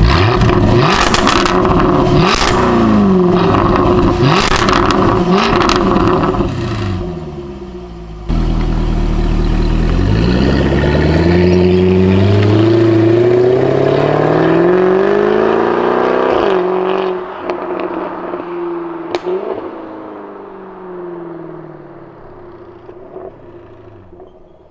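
Jaguar F-Type R's supercharged V8 and exhaust, very loud: revving with sharp pops and cracks for the first few seconds. After a sudden jump in level it accelerates hard, the pitch rising in steps through gear changes, then the pitch falls and the sound fades.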